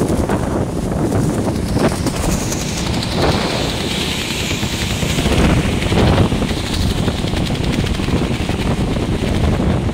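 Wind buffeting the microphone on a moving motorbike, over a steady rush of engine and tyre noise on a wet road. A hiss swells in the middle and fades again.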